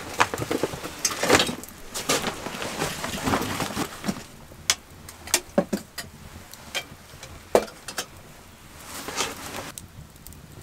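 Handling of gear in a wooden shelter: rustling and quick knocks for the first few seconds, then a handful of separate sharp clicks and knocks of objects set down on wooden boards.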